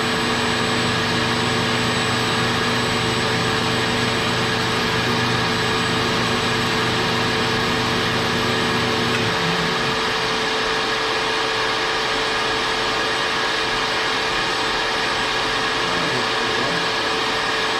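Shop vacuum running steadily as dust collection on a Grizzly G0513X2BF 17-inch bandsaw. Under it runs a lower hum, which stops about halfway through while the vacuum keeps going.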